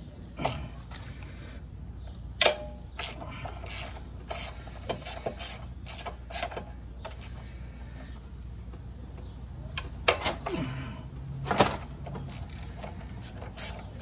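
Socket ratchet clicking in short, irregular bursts as the 12 mm fork pinch bolts of a Honda GL1500 Goldwing's front axle clamp are backed out, with a few louder metallic clacks.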